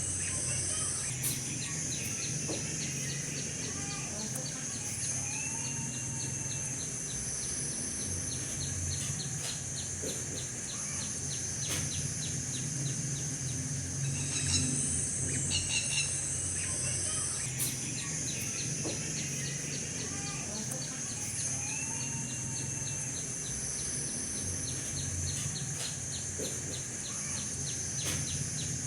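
Outdoor nature ambience: a steady high insect drone with a fast ticking trill, and scattered short bird chirps over it.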